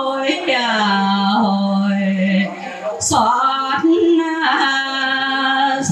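Vietnamese funeral music: a mournful melody of long held notes that slide between pitches, with a single sharp hit about three seconds in.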